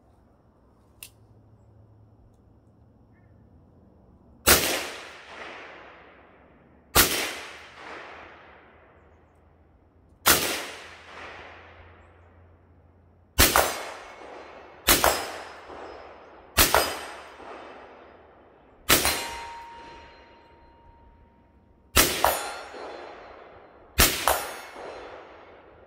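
AR-style rifle fired one shot at a time at a slow, uneven pace, about ten shots with gaps of one to three seconds, each shot echoing off briefly. A high ringing tone lingers for about two seconds after one of the later shots.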